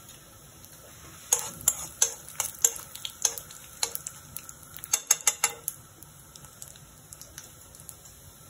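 Dry red chillies and panch phoron spices sizzling softly in hot oil in a metal kadai. From about a second in until past halfway, a spoon stirring makes a run of quick, sharp clicks and scrapes against the pan.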